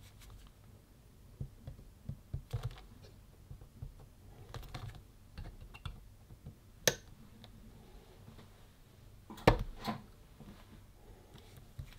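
Handheld spot-welder pens pressing a terminal tab onto a battery cell at a higher power setting: scattered light clicks and taps, with sharp snaps of the weld pulses about seven and nine and a half seconds in.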